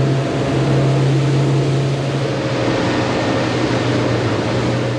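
A motorboat's engine running steadily at cruising speed under way, a constant low drone, with a loud rush of wind and water over the hull.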